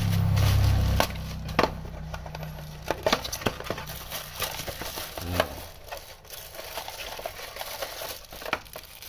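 Hands working a small cardboard box open and drawing out a plastic-wrapped part: cardboard flaps scraping and snapping, with sharp irregular clicks and the crinkle of plastic wrap. A low rumble is loudest in the first second and fades out about halfway through.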